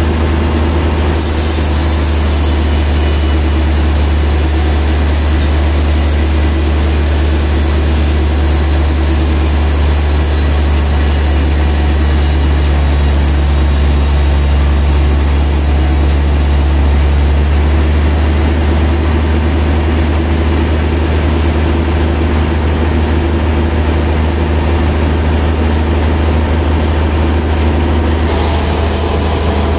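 Large band sawmill running: a steady, loud low machine hum with the whir of the band blade over it.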